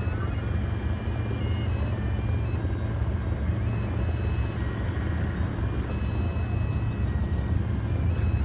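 A steady low outdoor rumble, like wind on the microphone and distant engines, with a faint tune of held notes stepping from pitch to pitch above it.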